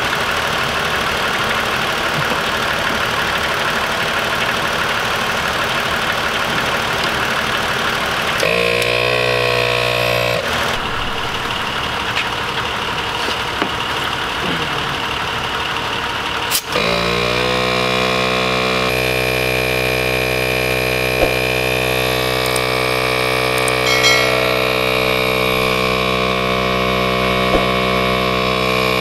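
ARB CKMA12 12-volt on-board air compressor running to inflate a tire through a coiled airline. It starts up with a brief rising pitch at about eight seconds, and again after a click a little over halfway through, then runs with a steady hum.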